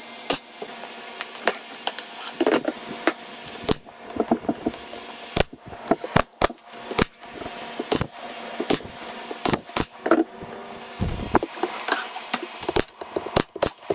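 Pneumatic brad nailer driving 1¼-inch brad nails through a plywood panel into a pine box frame: many sharp shots in quick, irregular succession, with a dull thump about eleven seconds in.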